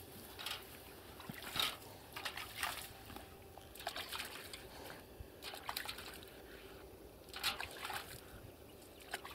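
Water sloshing and splashing in a bucket in short, irregular bursts as an inflatable boat seat cushion is dunked and rinsed in it.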